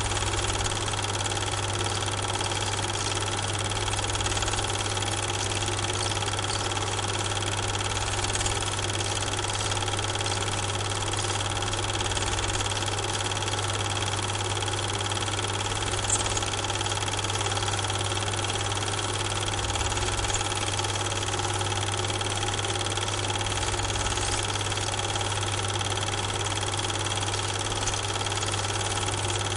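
A steady machine hum: a low drone with constant tones above it, unchanged throughout, with a faint click about halfway through.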